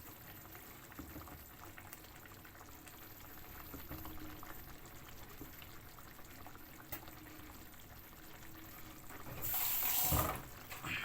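Chicken and vegetables in cooking cream simmering quietly in a pan. Near the end comes a brief loud burst of running water.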